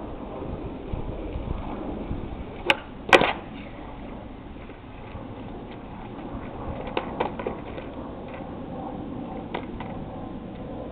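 Skateboard rolling on asphalt, then two sharp cracks close together about three seconds in: the tail popping and the board slapping down on the pavement in a flip-trick attempt. A few lighter clacks of the board on the road follow a few seconds later.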